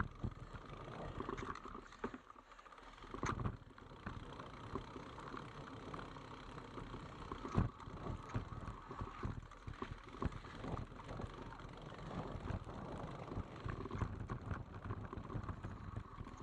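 Mountain bike riding a rough technical trail: irregular knocks and rattles as the bike jolts over the ground, over a steady rumble of tyre and ride noise, with one sharper knock about halfway through.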